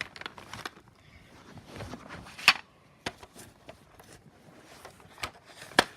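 Handling noise: scattered clicks, knocks and light rustling, with a sharp click about two and a half seconds in and another near the end.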